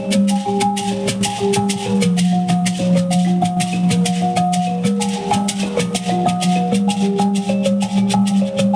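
Mbira (Zimbabwean thumb pianos) played inside gourd resonators, interlocking plucked notes over a steady bass note, with hosho gourd shakers keeping an even rattling beat.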